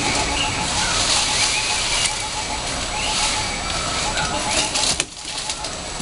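Birds calling outdoors: short chirps and a rapid repeated trill over a steady, fairly loud noisy background. A sharp click about five seconds in, after which the background briefly drops.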